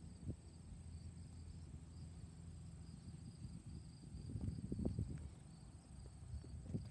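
Insects chirping steadily in a high, pulsing band, over a low rumble that grows louder and choppier about four seconds in.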